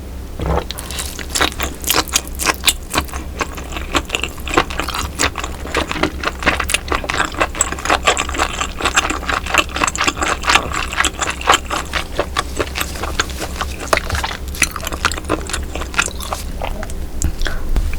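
Close-miked chewing of roe-filled baby octopus: a dense run of quick mouth clicks and smacks, busiest in the middle stretch.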